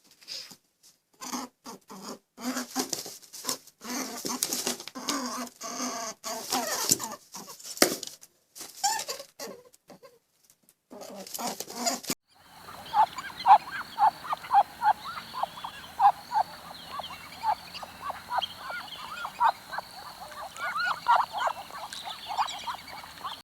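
Farm birds calling. In the first half there is a broken series of harsh, rasping calls. About halfway through the sound changes abruptly to a dense run of many short chirping calls over a steady hiss.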